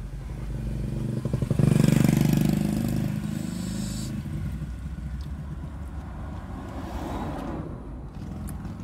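A motor vehicle passes close by, heard from inside a car: its engine and road noise swell to a peak about two seconds in, then fade away slowly.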